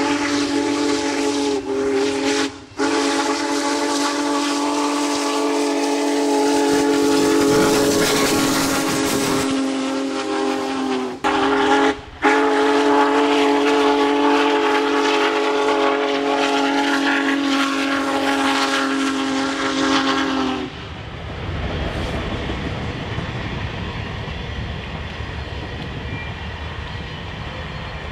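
Steam chime whistle of Union Pacific Big Boy 4014 blowing long, steady chord blasts, broken by a few short gaps. About two-thirds of the way through the whistle stops and a low, steady rumble takes over.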